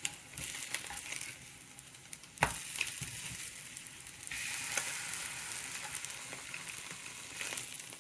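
Slices of Spam frying in a pan, a steady sizzle with scattered crackles and spits. There is a sharp knock about two and a half seconds in, and the sizzle grows louder about four seconds in.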